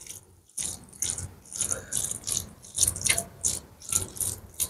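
Fingers mixing rice with chicken curry by hand, giving a quick, uneven run of short crackling, sticky sounds, a few a second.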